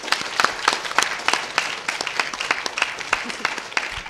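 Audience applauding: many hands clapping densely and steadily.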